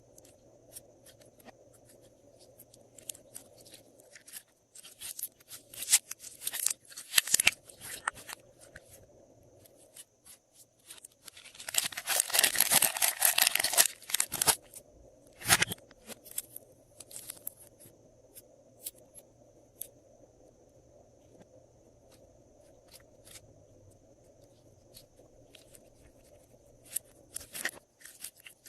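Glossy slime being worked by hand, giving scattered sticky clicks and pops. Denser crackling bursts come a few seconds in and a longer one of about two seconds near the middle.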